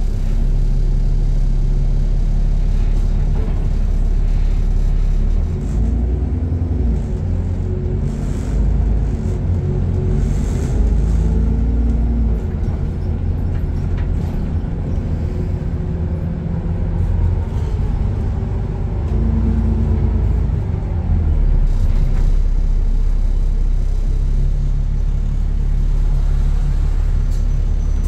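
Alexander Dennis Enviro 400 double-decker bus's diesel engine, heard from inside the passenger saloon. It idles at first, then about five seconds in the bus pulls away and the engine note rises and falls through several gear changes. Over the last several seconds it settles back to a steady idle.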